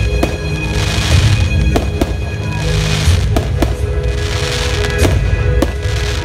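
Aerial fireworks shells bursting in an uneven string of a dozen or so sharp bangs, with crackling sparks between them, over steady music.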